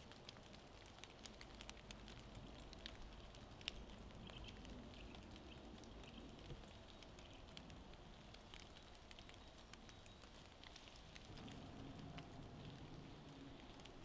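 Near silence: quiet forest ambience with faint, scattered light ticks and patter, one sharper click a little under four seconds in, and a faint low rumble from about eleven seconds in.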